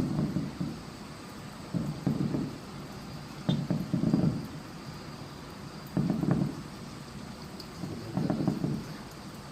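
Aerial firework shells bursting in a string of booms, about one every two seconds, some coming in quick pairs.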